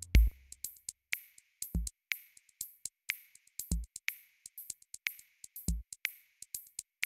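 Electronic background music with a sparse drum-machine beat: a deep kick about every two seconds, with quick sharp clicks and snaps between the kicks.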